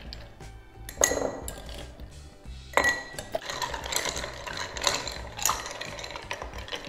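Ice cubes dropping into a glass with two sharp ringing clinks, then a bar spoon stirring the ice, a quick run of clinks against the glass. Background music underneath.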